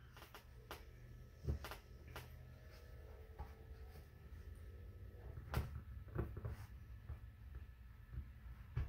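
Faint, scattered light taps and knocks, about half a dozen, as fabric is poked into the slits of a craft pumpkin with a wooden stick and the pumpkin is handled. The loudest tap comes a little past halfway.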